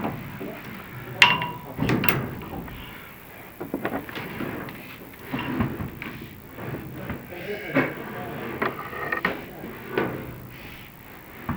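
Irregular knocks, clicks and scrapes of an inspection camera and its push cable being fed down a metal dryer vent duct, with a few brief squeaks.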